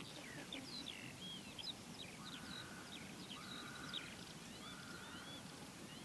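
Wild birds calling faintly over an open wetland field: many short slurred whistles and chirps, and three longer, level buzzy notes in the middle, over a low background hiss.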